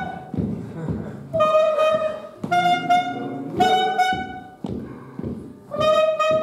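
A reedy wind instrument playing a short tune of held notes, each about half a second to a second long with brief gaps between them, with lower tones sounding underneath.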